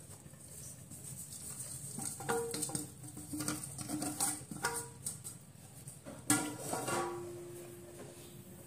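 A metal bowl knocking and clinking against a kadhai as besan is tipped into hot ghee, with several separate knocks between about two and seven seconds in. The loudest, about six seconds in, leaves a ringing tone that dies away over about two seconds.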